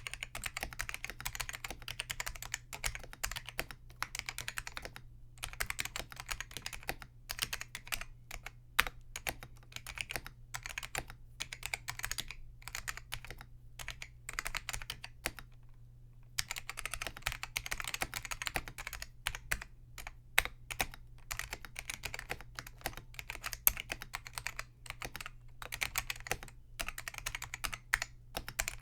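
Typing on a Focus FK-2001 keyboard with Hua-Jie T1 Alps clone switches, linearized by removing their click leaves: quick runs of key clacks broken by short pauses, with one longer pause a little past the middle.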